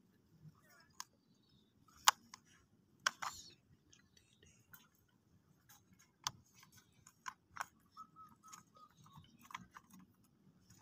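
Plastic toy vehicles being handled and set down, giving a scattered run of light, irregular clicks and taps, the sharpest about two and three seconds in.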